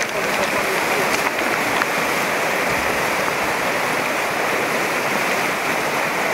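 Fast mountain river rushing steadily over rocks and riffles, a continuous roar of water.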